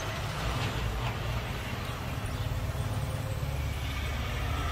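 Hot air rework station blowing a steady stream of air, reflowing the solder balls in a BGA reballing stencil.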